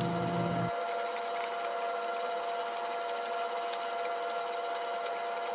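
A small electric motor runs with a steady whine that holds one pitch, with light clicks scattered through it. It is most likely a powered nut driver running the worm-gear hose clamps on the cold air intake couplers. The whine stops abruptly near the end.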